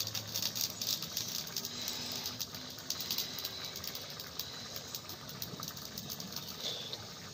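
Nearly cooked fish and vegetable curry simmering in a karahi over a wood fire: a dense crackle of small bubbling pops that thins out after about three and a half seconds.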